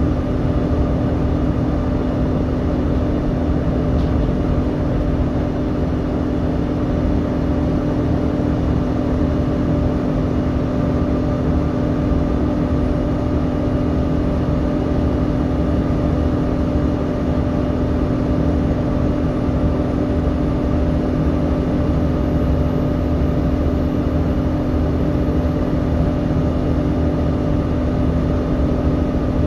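Volvo B7TL bus's six-cylinder diesel engine running steadily, heard from inside the saloon, with the loud, constant whine of its engine cooling fan over the low drone.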